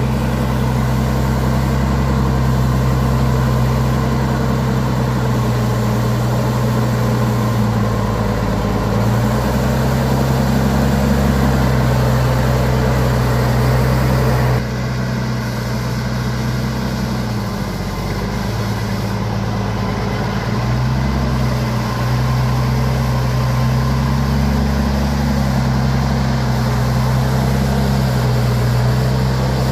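Heavy truck engine running, its pitch sagging and picking back up several times as the revs change. The sound shifts abruptly and drops slightly in level about halfway through.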